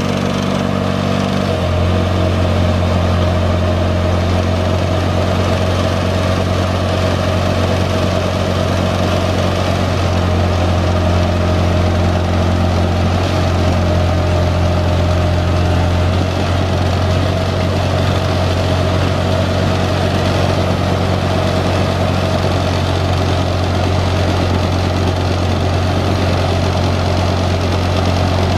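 Bandit 2800SP stump grinder's Caterpillar four-cylinder diesel engine running steadily. Its note changes slightly about a second and a half in, then holds even.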